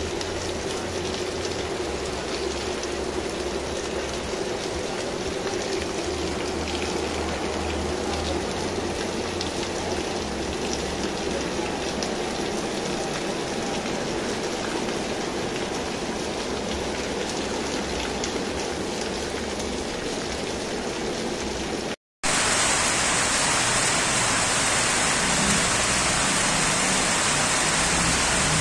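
Steady rain falling on a paved street, with water running off a roof spout onto the pavement. After a brief dropout about 22 seconds in, a second rain recording follows, louder and hissier.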